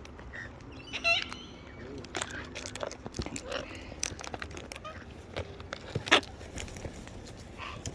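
Parrots perched close to the microphone, their beaks and claws making scattered sharp clicks and scrapes as they nibble, with a brief call about a second in.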